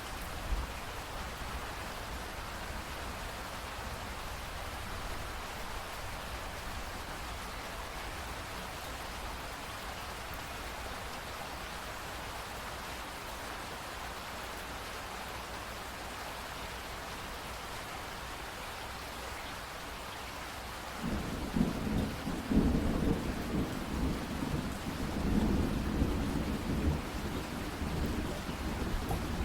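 Steady rain, joined about twenty seconds in by a long, uneven rumble of thunder that is louder than the rain.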